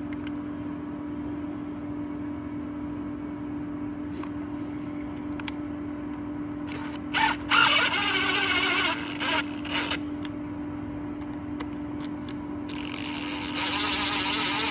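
An aerosol can spraying in hissing bursts: several short sprays about seven seconds in, then one longer steady spray near the end, over a steady low hum.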